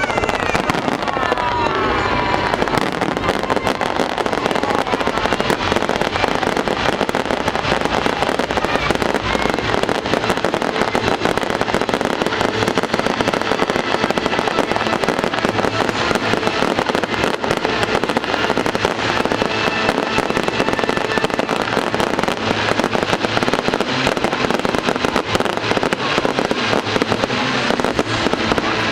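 Aerial fireworks display: a dense, continuous barrage of bangs and crackling shell bursts with no let-up.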